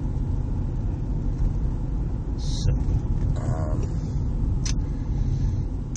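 Steady low road and engine rumble inside the cabin of a 2002 Subaru Outback, its 2.5-litre flat-four coasting off the throttle with revs falling as the car slows. There is a brief hiss about two and a half seconds in and a sharp click near the end.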